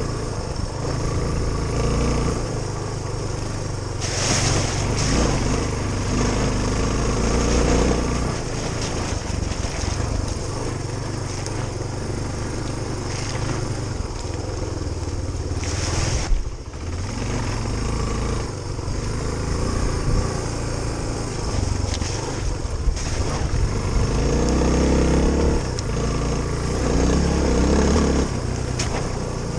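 Suzuki DR350SE single-cylinder four-stroke trail bike engine running under way, its pitch rising and falling with the throttle. Brief rushes of hiss come about four and sixteen seconds in.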